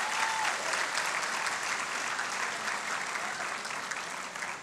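Large audience applauding steadily, the clapping thinning out near the end.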